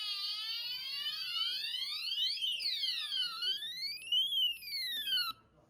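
Electronic fire alarm sounder of a Dahua conventional fire alarm system sounding a sweeping tone. The pitch slides down, then up and down again, roughly once every one to two seconds. It cuts off suddenly near the end.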